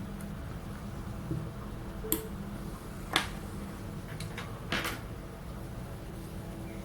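A few sharp clicks and taps, the loudest about two and three seconds in, then a few light ticks and a short scraping rattle near five seconds, over a steady low hum: small tools and parts being handled while taking apart a OnePlus 2 smartphone to replace its battery.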